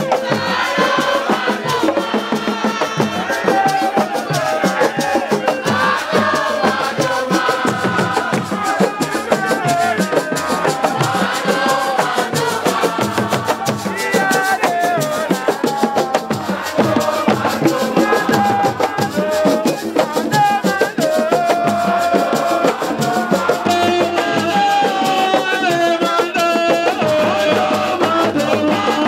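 Music with fast, dense percussion and rattles, and a singing voice over it.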